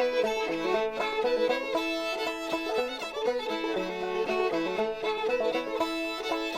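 Bluegrass-style background music with fiddle and banjo.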